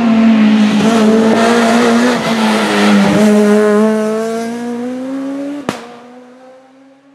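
Renault Clio rally car at high revs through a bend, engine pitch dipping and picking back up with the throttle and gear changes. It then climbs in pitch as the car accelerates away and fades into the distance, with a single sharp crack about five and a half seconds in.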